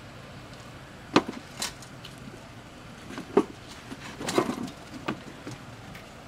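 A handful of short, sharp knocks and clicks, scattered unevenly over a steady low background. The first, about a second in, is the loudest.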